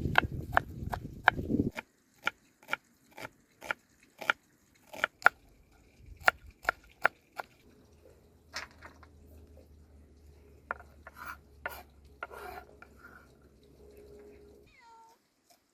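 Knife chopping on a wooden board: sharp knocks about two a second, giving way about five seconds in to slower, scattered knocks and scrapes of food preparation. A short falling chirp sounds near the end.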